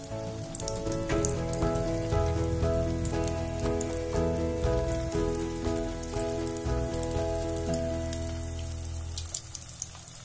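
Samosa rolls frying in a pan of hot oil, a steady fine crackle and sizzle. Background music with sustained notes plays over it, fading near the end.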